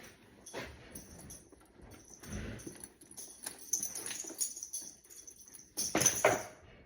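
Barn sounds around a horse: scattered knocks and rustling with light metallic jingling, the loudest burst about six seconds in.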